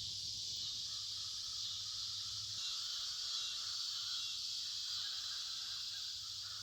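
Steady, unbroken chorus of insects such as crickets, a high continuous trill.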